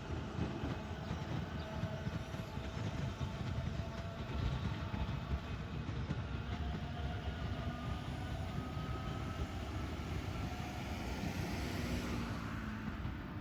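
A train running past on the rails, with steady wheel-on-rail noise.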